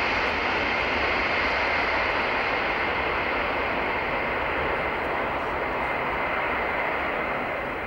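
Boeing 747 jet engines at takeoff power as the jumbo jet rolls down the runway and lifts off: a steady rushing noise with a high whine on top, fading slowly near the end as the aircraft moves away.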